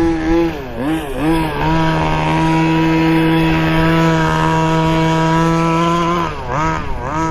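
Two-stroke gas engine of a 1/5-scale RC buggy revving: a few quick throttle blips, then held at a steady high rev for about four and a half seconds, then blipped again near the end.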